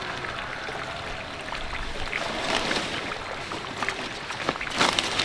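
Leaves rustling and stems snapping as leafy vegetables are picked by hand, with a louder burst of crackling about five seconds in, over a steady outdoor rushing noise.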